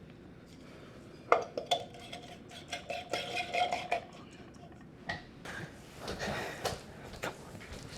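Hard objects clinking and rattling as they are handled, in two bouts of clatter with a thin squeak during the first.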